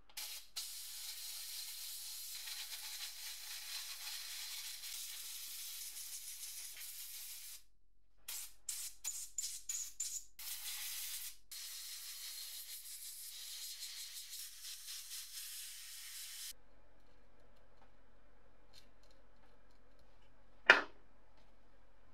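Compressed-air blow gun hissing over a circuit board to blow the ultrasonic-cleaning liquid off it: a long steady blast, then a quick run of short bursts, then another long blast. Near the end there is a single sharp click.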